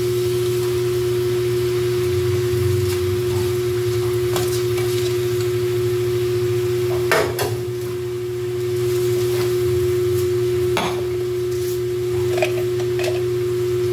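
Kitchen clatter of metal pots and utensils over a steady hum: a few sharp clanks about seven seconds in and another near eleven seconds, with lighter knocks between.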